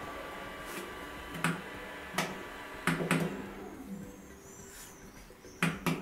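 Several short, sharp knocks and clicks at irregular intervals, from handling equipment, over a faint steady electrical hum.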